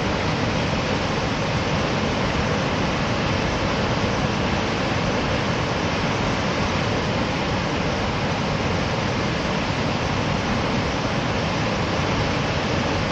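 Large river waterfall in flood, a heavy volume of water pouring over the falls into a gorge: a steady, unbroken rushing of falling water and spray.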